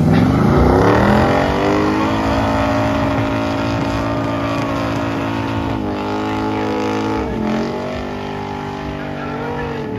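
Classic muscle car's engine revving up hard and held at high revs while it spins its rear tyres in a smoky burnout. The revs sweep up at the start, dip briefly twice past the middle and come back up.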